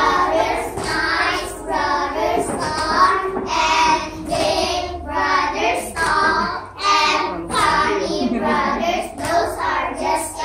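A group of young children singing a song together, phrase after phrase without a break.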